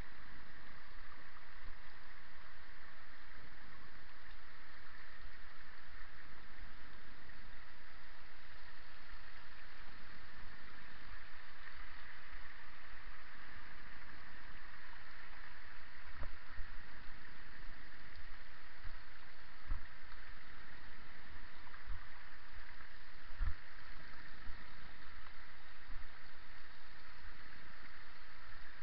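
Bicycle descending a rocky, wet stream-bed track, heard from a camera mounted on the bike: a steady rushing hiss, with a few short low thumps in the second half as the bike jolts over rocks.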